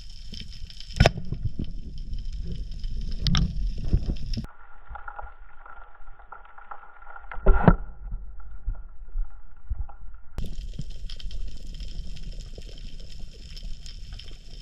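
Underwater sound picked up by a spearfisher's camera: muffled water noise and gurgling with a low rumble and a few sharp clicks. The background changes abruptly about four seconds in and again near ten seconds.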